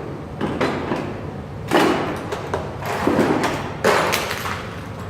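A few dull knocks and thuds with rubbing and rustling in between, the sound of things being handled and moved about.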